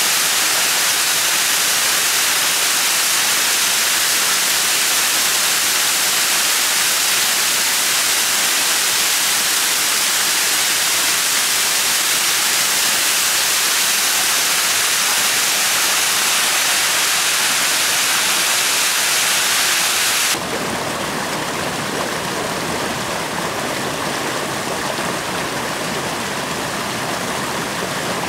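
Waterfall sliding down a steep rock face: a steady, loud rush of falling water with a lot of hiss. About two-thirds of the way through it cuts abruptly to a quieter, lower-pitched rush of a shallow stream running over pebbles.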